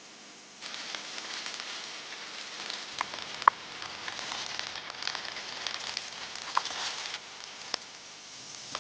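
Food frying in a pan, sizzling with sharp pops and crackles of spitting fat. The sizzle starts suddenly just under a second in and cuts off abruptly a little after seven seconds.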